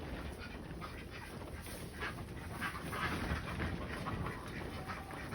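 Faint farm animal sounds: scattered short, quiet calls or breaths over a low background rumble.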